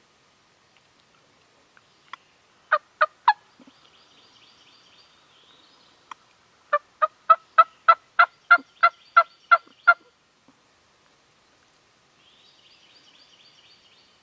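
A turkey's short, sharp yelping calls. A few notes come about two seconds in, then an even run of about a dozen at roughly three a second between about six and a half and ten seconds.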